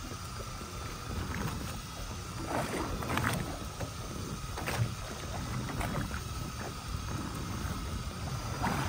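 Small boat at sea: a steady low rumble of wind and water with a faint steady whine, broken by a few sharp knocks.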